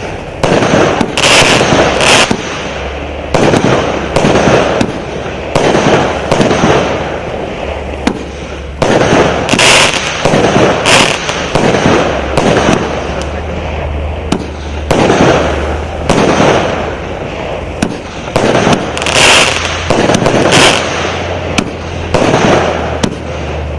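A multi-shot consumer firework battery, the "All Inclusive 120", firing a rapid, continuous series of launches and bursts. Several louder bursts with bright crackling stand out at intervals.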